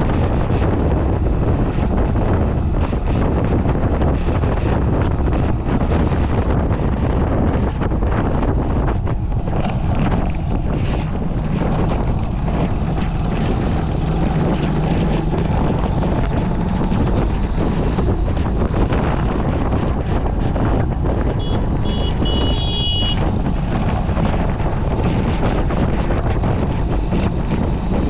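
Steady wind noise buffeting the microphone of a motorcycle-mounted action camera on the move, over the low rumble of the bike and the road. About 22 seconds in, a short high tone sounds for a second or so.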